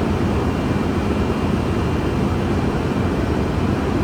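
Electric motor of a ship's jacket water preheater pump running, with a steady, loud machinery noise; the motor has an abnormal noise at its non-drive end, which is suspected to come from its bearing.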